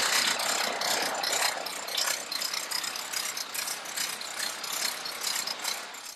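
Aircraft cockpit noise of a light plane in flight: a continuous rattling hiss of engine and airflow. It stops abruptly at the end.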